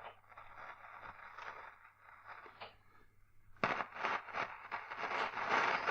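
Crackling static and hiss from the Loewe-Opta Magnet 3737W tube radio's loudspeaker over a low steady hum, growing louder a little past halfway. No test tone comes through: the radio is not receiving the injected signal.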